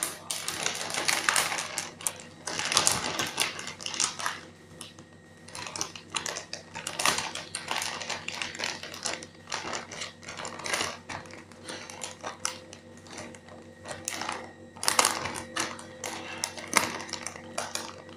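A squishy's plastic packaging bag crinkling and crackling irregularly as it is handled and pulled at to get it open.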